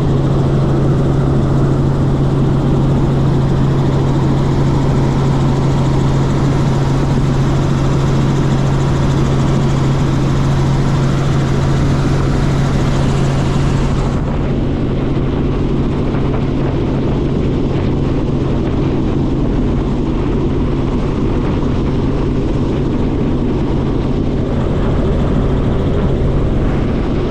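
Robinson R44 helicopter in flight: a loud, steady drone of engine and rotors with a strong low hum. About halfway through, the higher hiss drops away and the sound becomes a little duller.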